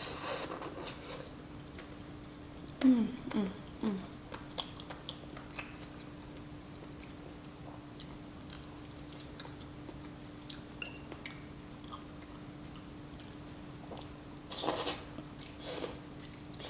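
Close-up eating sounds: a slurp of broth from a spoon at the start, then soft chewing and small wet mouth clicks on chewy rice cakes and fish cake, with a few louder mouth sounds around three to four seconds in. Near the end, a longer slurp as thick glass noodles are sucked up. A faint steady hum runs underneath.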